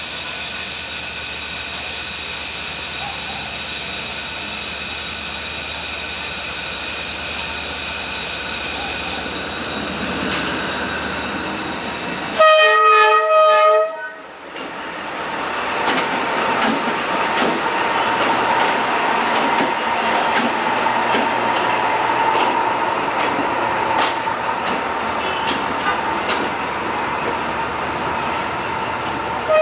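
D19E diesel-electric locomotive running with a steady engine hum as it nears, then a loud horn blast of about a second and a half. It then passes close by with louder engine and wheel noise, a steady whine and scattered clicks over the rail joints, and the horn sounds again at the very end.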